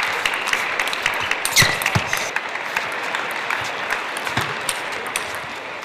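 Arena crowd applauding a won point in a table tennis match: steady dense clapping, with a brief shout about a second and a half in.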